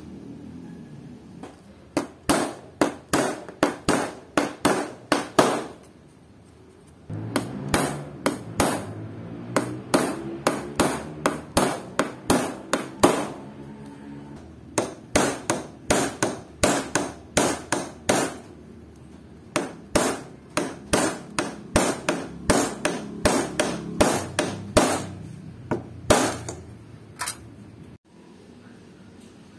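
Hammer tapping nails into a pine wood frame, in runs of quick, even strikes about two to three a second with short pauses between the runs.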